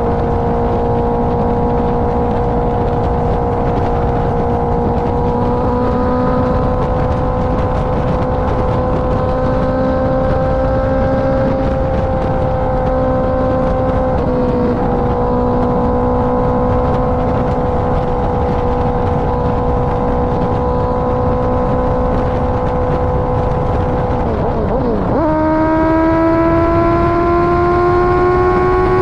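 Honda CBR650R inline-four with a KO Lightning aftermarket exhaust, running at a fairly steady note over a constant rush of wind while riding. About 25 s in the note drops sharply and then climbs steadily as the engine pulls again.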